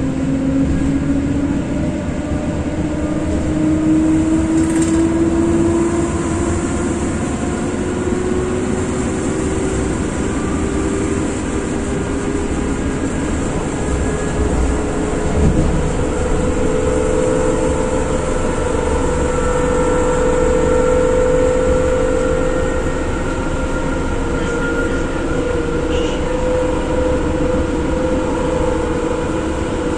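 Inside the motor car of an EN57 electric multiple unit under way: the traction motors and gearing whine, rising steadily in pitch over about twenty seconds as the train gathers speed, then holding level. This runs over the steady noise of wheels on rails, with a single thump about halfway.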